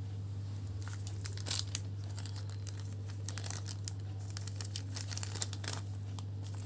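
Packaging crinkling and rustling in the hands in quick irregular crackles, over a steady low electrical hum.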